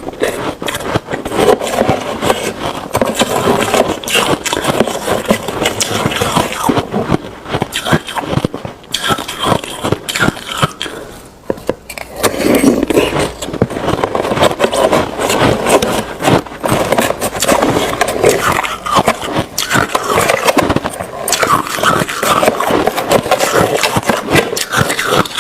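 Close-miked crunching of ice being chewed: a dense, irregular run of sharp cracks and crunches.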